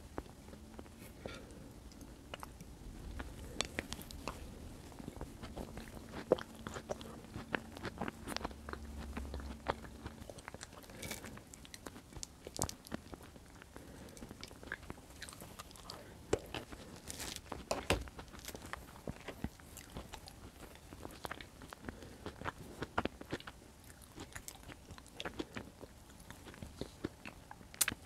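Close-miked chewing of bread dipped in white beans in tomato sauce, with many irregular sharp mouth clicks and smacks.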